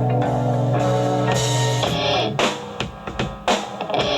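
Rock band music: a held guitar chord rings for about two seconds under a cymbal wash, then the drums play a string of separate sharp hits with short breaks between them.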